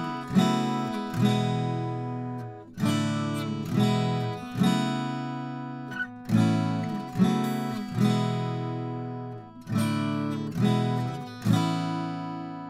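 Steel-string acoustic guitar strummed in chords, about one a second, each chord ringing out and fading before the next. It is picked up close on a large-diaphragm studio condenser microphone.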